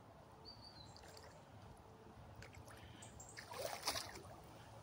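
Wellington boots wading through shin-deep floodwater: a short slosh of water about three and a half seconds in, over faint background.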